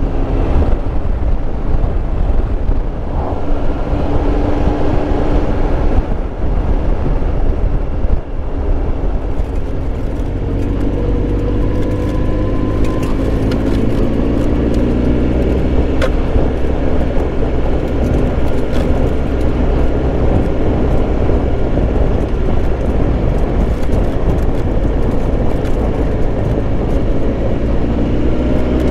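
Triumph Tiger Explorer 1200's three-cylinder engine running under way, heard from the bike over a steady wind rush. Its note climbs slowly in pitch through the second half as the bike gathers speed.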